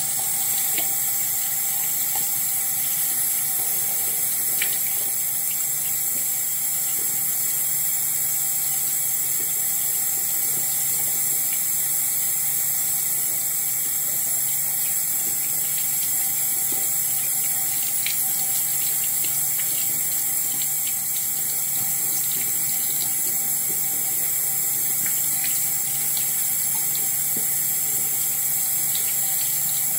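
Bathroom sink tap running steadily into the basin, with water splashing as soap lather is rinsed off a face.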